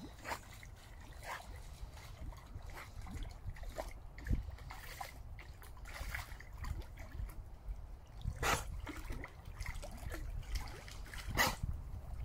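A sprocker spaniel swimming in a pond: water sloshing and splashing around it as it paddles. There are a few short, sharper sounds, the clearest about two-thirds in and near the end, over a steady low rumble.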